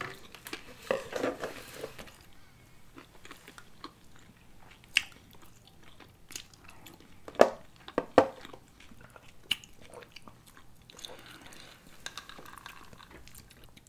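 Close-miked chewing and biting of sushi rolls, with some crunch. A few sharp clicks and knocks stand out, the loudest two about seven and a half and eight seconds in.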